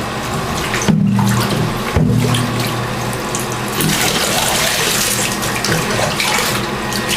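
Tap water running steadily and splashing.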